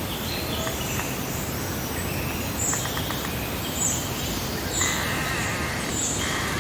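Summer meadow ambience: several wild birds calling over a steady background hiss, with short high chirps about once a second and a couple of harsher, rougher calls in the last two seconds.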